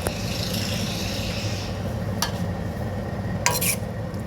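A spatula stirring and scraping chicken masala in a pan on the stove, with a light sizzle at first and a sharper scrape against the pan about three and a half seconds in, over a steady low hum.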